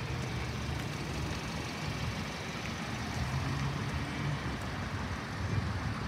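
Road traffic: cars and pickup trucks idling and pulling away, a steady low engine rumble that swells for a moment about halfway through.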